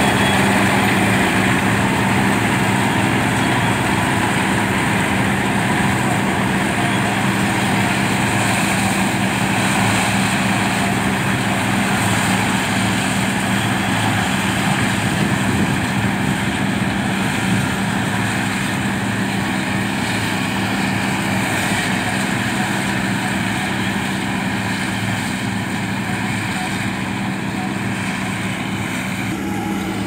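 Combine harvester with a maize cutter header running steadily while harvesting maize: a continuous engine drone with a steady low hum under the noise of the cutting and threshing machinery, slowly getting a little quieter.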